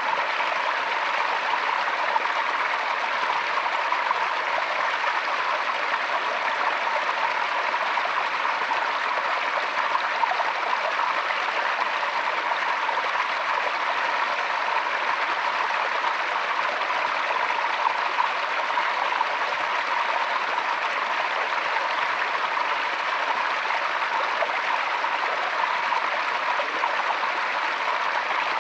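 Forest stream running steadily over rocks, a continuous even rush of flowing water.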